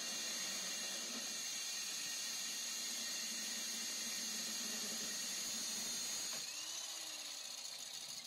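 Rig-mounted electric diamond core drill boring a large hole through a house wall, run dry without its water feed: a steady high-pitched motor whine with the cutting of the bit. About six seconds in it is switched off and winds down.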